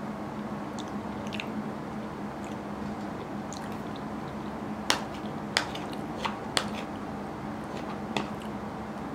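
Metal spoon clinking and scraping against a ceramic bowl as food is scooped, five sharp clinks in the second half, over soft chewing sounds.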